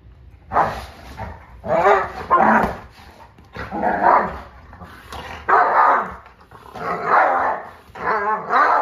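Two dogs play-fighting, growling and barking in about six short loud bursts. It is rough play, not a real fight.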